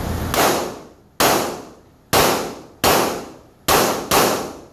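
Six pistol shots fired in an indoor shooting range, each ringing out and dying away in the room's echo; the last two come in quick succession.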